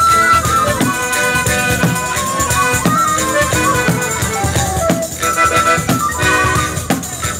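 Live traditional folk music: a hand-beaten frame drum keeps a steady rhythm under a held, wandering melody line, with small rattling percussion mixed in.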